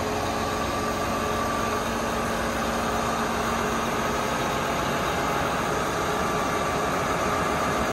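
John Deere 8R410 tractor's diesel engine idling steadily.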